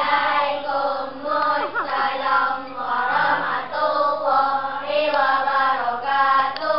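Young schoolchildren singing a simple song together, the melody moving in steps between held notes.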